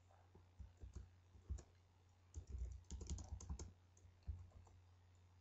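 Faint computer keyboard typing: a few scattered keystrokes, then a quick run of keys about two and a half seconds in, over a low steady hum.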